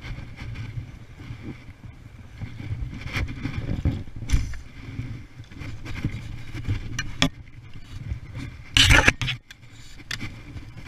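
Shallow floodwater sloshing and swishing as a bowfisher wades, over a continuous low rumble, with scattered small knocks and a brief loud rush of noise about nine seconds in.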